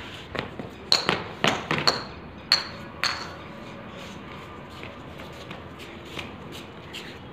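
Sharp knocks of a ball in play on a hard tiled floor, about five in two seconds, each with a short ringing ping, followed by faint light taps.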